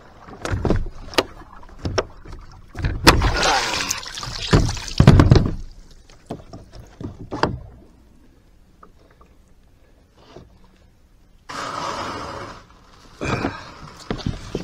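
Knocks and bumps on a plastic kayak hull, with loud splashing and water noise about three to five seconds in as the netted fish is handled alongside. Near the end comes about a second of scraping as the hull grounds on a sandy landing, followed by more knocks.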